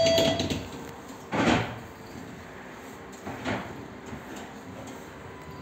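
Doors of a Tatra T5C5K tram working: a loud short clatter about a second and a half in and a softer one about two seconds later, over a steady low background. A steady warning tone cuts off right at the start.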